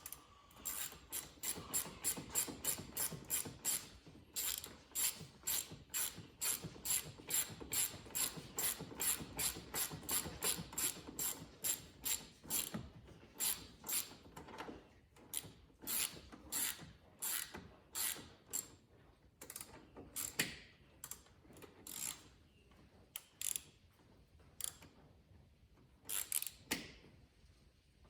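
Hand socket ratchet clicking in quick runs of strokes as the 14 mm intake mounting bolts are tightened. The clicks come several a second at first and space out toward the end.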